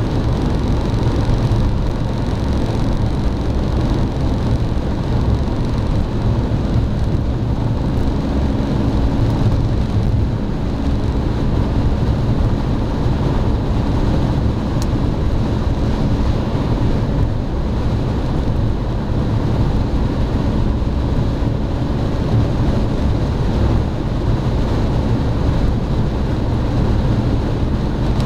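Steady low road and wind roar inside a BMW 330d's cabin while cruising on the Autobahn.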